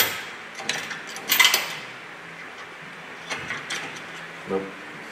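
Metal clicks and clinks of hand work at a truck's front steering box bracket: one sharp click at the start, clusters of clicks around a second and a half in, then lighter ticks and a dull knock near the end.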